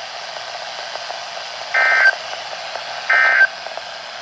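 Two short bursts of Emergency Alert System SAME digital data over steady radio hiss, each a harsh two-tone warble about a third of a second long, just over a second apart. This is the end-of-message code that closes the warning broadcast.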